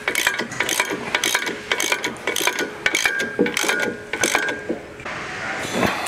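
Socket ratchet wrench clicking in quick repeated strokes as bolts are snugged tight on a steel bracket, with a short metallic ring on the clicks. The clicking stops about five seconds in.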